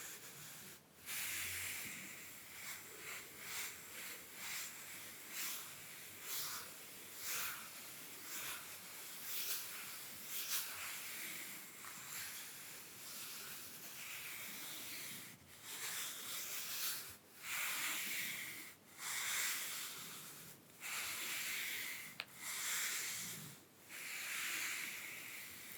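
Soft makeup brushes stroking lightly over bare skin: a steady series of soft swishing strokes, roughly one a second, some drawn out longer.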